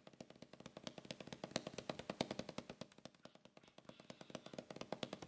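A fast, uneven run of sharp clicks and knocks, several a second.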